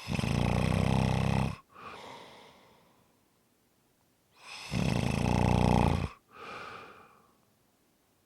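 A person snoring: two loud, rattling snores of about a second and a half each, the second about four and a half seconds after the first, each followed by a softer, shorter breath.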